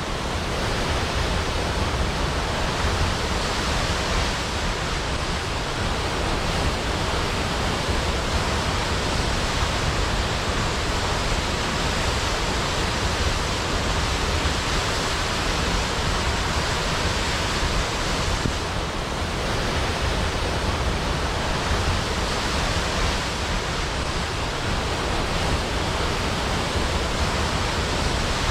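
Large waterfall pouring steadily, a constant even rush of falling water.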